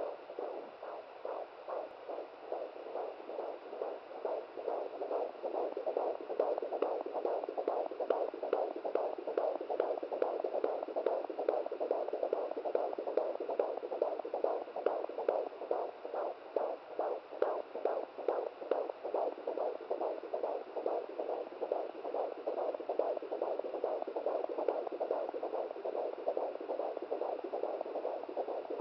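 Fetal heartbeat at 17 weeks picked up by a handheld fetal doppler and played through its speaker: a fast, even pulsing that keeps going steadily.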